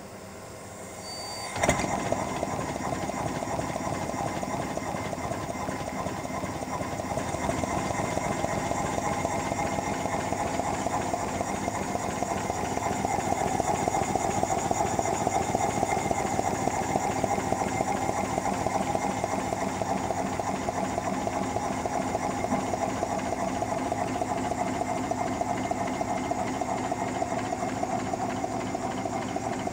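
Outside cylinders of a 5-inch gauge Royal Scot model steam locomotive chassis running on compressed air, the inside cylinder disconnected: the regulator opens about a second and a half in, and a rapid, steady chuffing of air exhaust and clatter of the spinning wheels and motion sets in. It gets louder over the first ten seconds or so, then holds steady.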